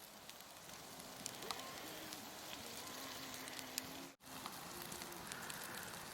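Campfire crackling with many small sharp pops over a soft hiss. There is a brief gap about two-thirds of the way through.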